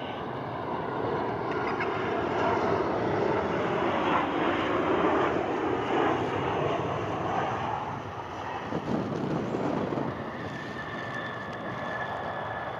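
Engine noise from a Boeing 737-800 with CFM56-7B jet engines as it lands and rolls out along the runway. It swells to its loudest in the middle seconds, then eases, and a steady high whine comes in near the end.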